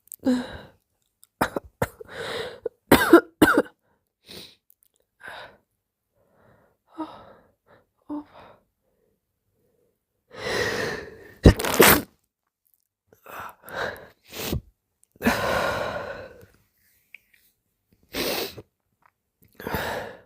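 A person sneezing wetly several times, sudden sharp bursts, some in quick pairs, with breathy gasping intakes and gentle moans in between.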